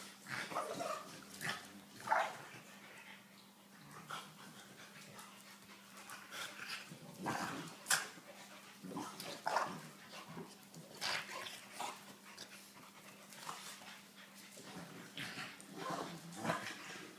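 French bulldogs and a St Bernard puppy play-fighting, with scattered short dog yips, whines and barks amid scuffling and sharp clicks, loudest about two and eight seconds in.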